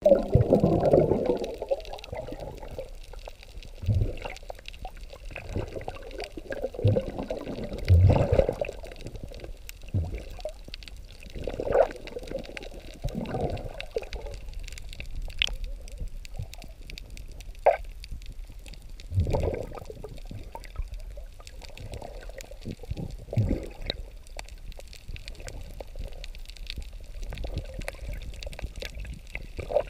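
Water sloshing and gurgling, heard underwater and muffled, in irregular surges every second or two. The loudest surges come right at the start and again about eight seconds in.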